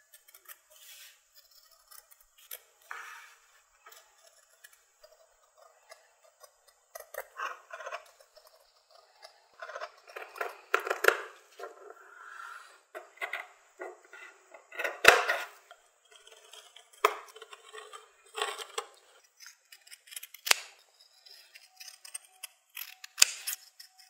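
Long-bladed fabric shears cutting through felt: an irregular run of snips and blade clicks, loudest about fifteen seconds in.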